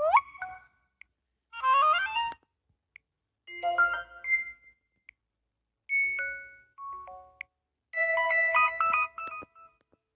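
LG V400 tablet playing its built-in notification tones one after another: a string of short electronic chimes and jingles of a few notes each, some rising, some falling, separated by brief pauses, with faint clicks in between.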